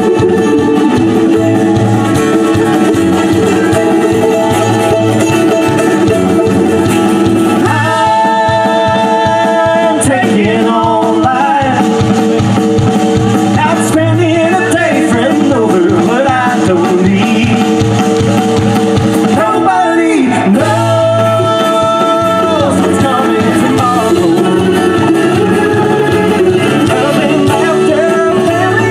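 A live band playing a song with mandolin, acoustic guitar and drums, with a voice singing long held notes about a third of the way in and again past the middle.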